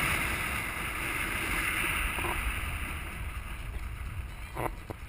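Wind rushing over a camera mounted on the outside of a moving car, with road noise beneath, dying down steadily as the car slows. A short knock near the end.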